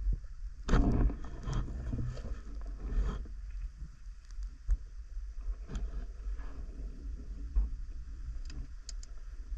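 Muffled underwater sound of a freediver swimming through waterweed: a steady low rumble with water swishing, louder for the first few seconds, and scattered small clicks and knocks.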